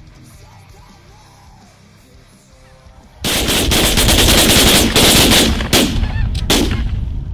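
Volley of shotgun fire from a group of snow goose hunters, many shots overlapping in quick succession. It starts suddenly about three seconds in and lasts about four seconds.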